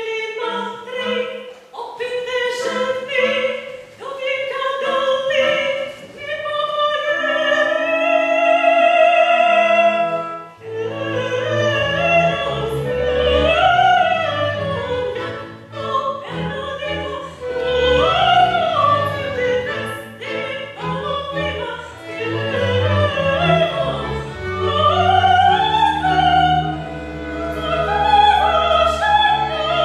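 Soprano singing opera with a small chamber orchestra of bowed strings. She holds one long note over light accompaniment for about ten seconds. Then deeper instruments come in underneath, and she sings swelling phrases with vibrato.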